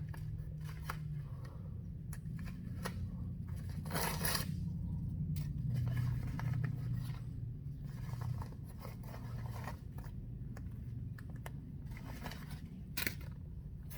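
Packaging being cut open with a box cutter and handled: scattered scrapes and clicks, a longer rasping cut about four seconds in and a sharp click near the end, over a steady low hum.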